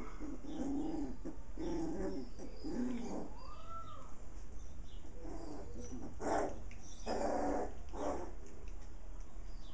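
Puppies growling and whining as they play-fight, with one rising-and-falling whine about three and a half seconds in and a few short yips or barks later on.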